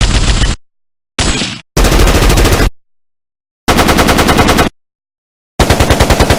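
Automatic gunfire in five short bursts with silent gaps between them, each burst a rapid string of shots at about ten a second. The second burst is the shortest and the third the longest.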